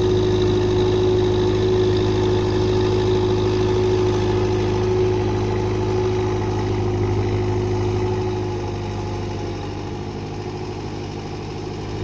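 Zettelmeyer ZL 1000 wheel loader's diesel engine running steadily as the loader drives over a grass silage pile to pack it down. A steady tone rides over the low engine drone and fades after about eight seconds, when the sound eases a little as the loader moves off.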